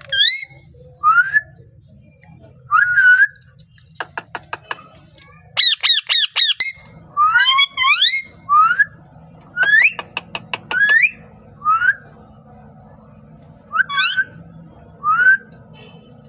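Pet parrot calling: a string of short, rising whistled squawks with pauses between them, a quick run of sharp clicks about four seconds in, and a fast chattering run of calls around six seconds in.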